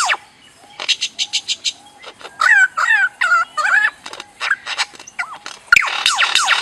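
Birds calling: a string of short quick notes, then wavering, warbled calls, then scattered chips. Near the end a loud, rapid run of falling whistled notes starts, several a second.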